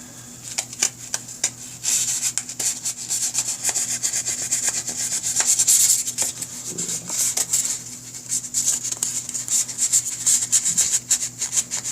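Fine 2000-grit sandpaper rubbed by hand over a small carburetor part in many quick back-and-forth strokes, smoothing it so it moves freely. A faint steady low hum lies underneath.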